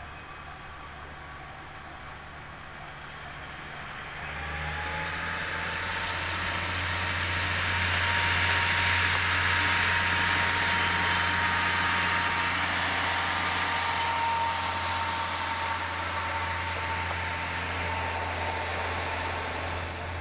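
Kominato Railway diesel railcar running past. Its engine hum and wheel-on-rail noise build up about four seconds in, are loudest midway and ease off a little toward the end. A steady whine runs through the loudest part.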